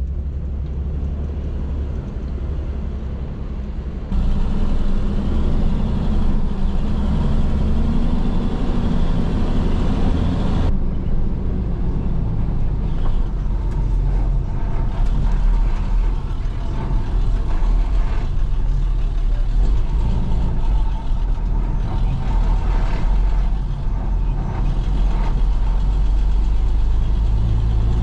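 Truck running on the road: a steady low engine rumble with road noise. The sound jumps abruptly about four and about eleven seconds in.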